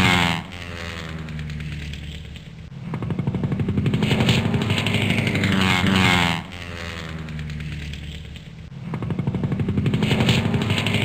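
Biplane's piston engine flying past twice: the engine note grows louder on approach, drops sharply in pitch and level as the plane passes about half a second in and again about six and a half seconds in, then fades before building up for the next pass.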